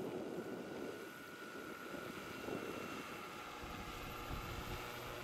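Large electric-powered scale model Hughes 500 helicopter in flight: rotor noise with a steady high whine from the drive. A low rumble comes in during the second half.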